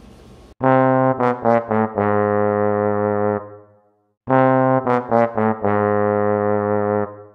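Brass music sting played twice: each time a few quick notes run into a long held note, then it stops short before the phrase repeats.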